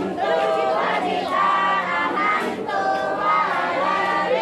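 A group of people chanting a prayer together in unison, with drawn-out sung syllables.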